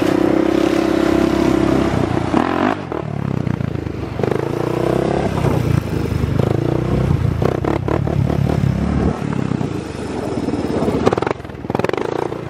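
Single-cylinder four-stroke off-road engines of a dirt bike and a four-wheeler running under throttle. The note holds steady for about two seconds, then revs rise and fall repeatedly.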